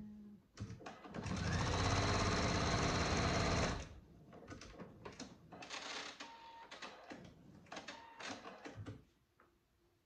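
Pfaff Creative 4.5 computerized sewing machine running steadily for about two and a half seconds, starting about a second in, as it stitches a dart in cotton fabric, then stopping. After that come quieter rustles and clicks as the fabric is handled.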